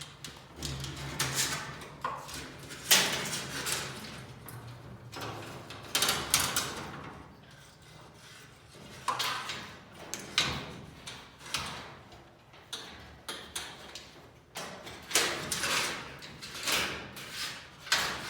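Irregular metal clanks, knocks and rattles as old garage door extension spring hardware is taken down, a dozen or so sharp hits with short gaps between.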